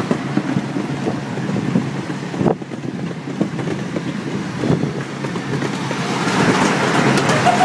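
Amusement-park ride train rolling along its track: a steady rumble with irregular clunks and clatter from the wheels, growing louder near the end. Wind buffets the microphone.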